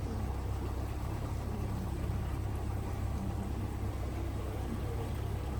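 A vehicle's engine running steadily at low revs, a constant low rumble, as it crawls slowly through deep water in a flooded ford.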